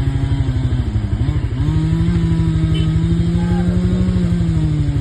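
Motorcycle engine running under way with a rapid, even pulse. Its pitch sags about a second in, then picks up again and holds steady.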